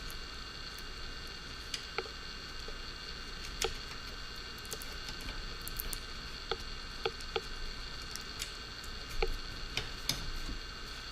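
Irregular light clicks and taps from hands handling the small parts and wires of a DJI Phantom 4 Pro drone during disassembly, over a steady electrical hum.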